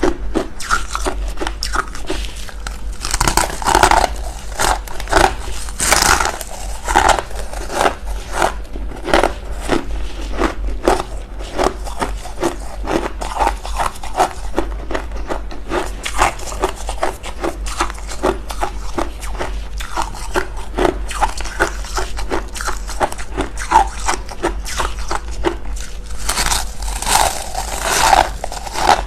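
Freezer frost being bitten and chewed: a dense, irregular run of crunches, heaviest a few seconds in and again near the end.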